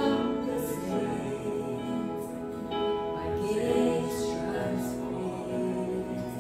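Slow worship song played by a church band: sustained, held chords carry on without a break.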